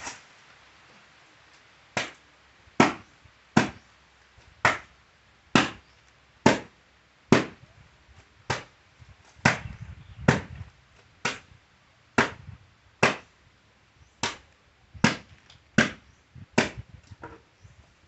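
Wooden laundry paddle beating wet clothes spread on concrete, a slap-like impact about once a second, some eighteen strikes in all. This is the traditional way of hand-washing laundry with a paddle, no washing machine.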